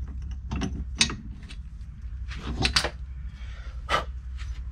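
Sharp metallic clicks and knocks as the ribbed drive pulley is worked off the splined shaft of the Citroen Ami's electric motor, about half a dozen in all, over a low steady hum.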